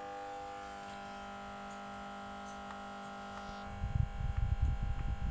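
Steady electrical hum with a few faint clicks. About four seconds in, irregular low knocks and rubbing start as gloved hands handle the compression tester on the engine.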